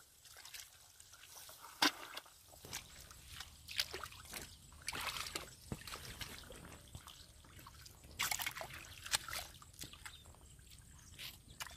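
Bare feet squelching and sucking in and out of deep wet mud, with sloshing muddy water, in irregular wet slaps and bursts. The sharpest slap comes a little under two seconds in, and a cluster comes around eight to nine seconds.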